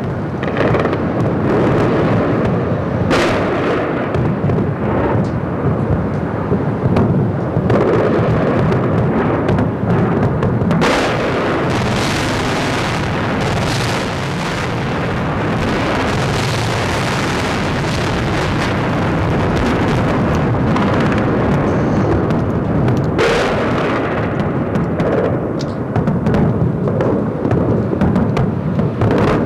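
Explosions and heavy rumbling of bombs striking a city during an air raid, with sharp blasts about 3, 11 and 23 seconds in.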